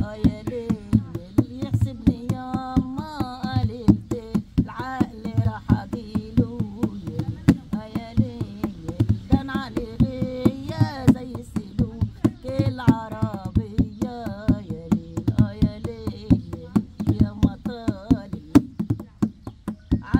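A woman singing while accompanying herself on an Egyptian tabla (skin-headed goblet drum). She plays a fast, steady rhythm of hand strokes, and the voice comes in phrases with short breaks between them.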